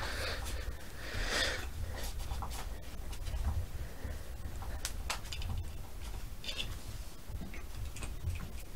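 Cloth rag rubbing and wiping the buffer tube and lower receiver of an AR-15, soft rustling with scattered small clicks and taps as the parts are handled.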